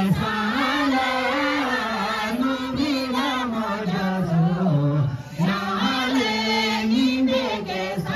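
Tibetan gorshey circle-dance song sung by a crowd of dancers in unison, a chant-like melody with no instruments heard. The singing breaks off briefly about five seconds in and then resumes.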